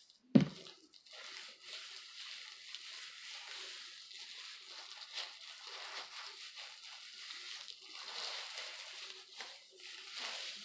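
Gloved hands working hair bleach through long wet hair: a steady wet squishing and crackling of thin plastic gloves rubbing and squeezing the soaked strands. A single sharp thump comes just after the start.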